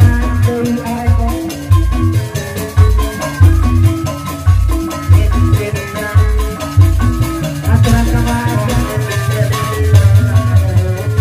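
Live Sundanese jaipongan music in bajidoran style: kendang drums beating a steady, heavy rhythm under metallophones playing a stepping melody.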